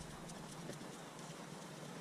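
Faint, irregular light ticks as a new outer tie rod end is turned by hand onto the inner tie rod's threads.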